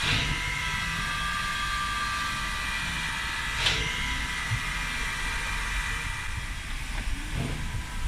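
Steam locomotive standing at rest, hissing steadily, with faint whistling tones in the hiss for the first few seconds and one short, louder whoosh of steam about three and a half seconds in.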